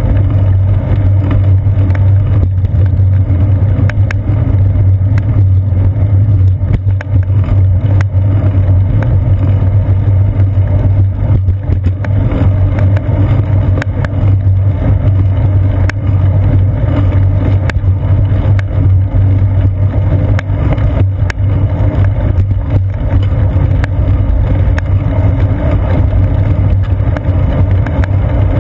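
Steady low rumble of wind and road vibration picked up by a seat-post-mounted GoPro camera in its housing while a bicycle rolls along a concrete sidewalk, with scattered small knocks throughout.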